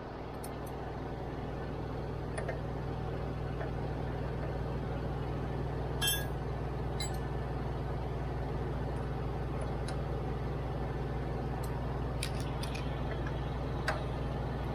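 An engine running steadily with a low hum, with a few short, faint clicks scattered through it.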